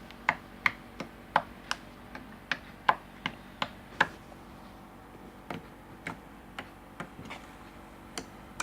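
Slime being squeezed and pressed by hand, giving loud, crisp clicking pops about two to three a second. After about four seconds they come fewer and softer.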